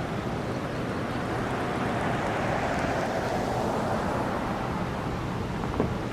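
Steady outdoor rushing noise of wind, swelling for a couple of seconds in the middle and then easing, with two short knocks near the end.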